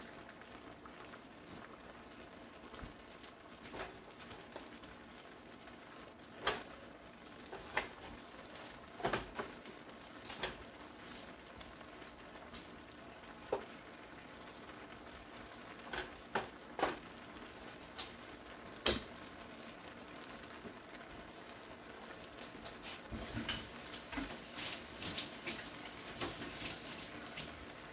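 Chow mein and its thickening sauce sizzling in a wok, with scattered clacks of a utensil against the pan, coming more often in the last few seconds.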